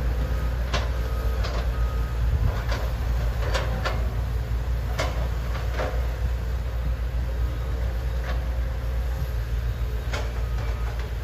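Diesel engines of Hitachi and Komatsu hydraulic excavators, with dump trucks, running with a steady low rumble at a dig site, broken by scattered metallic clanks and knocks from the working machines. A faint repeated beeping comes in near the start and again near the end.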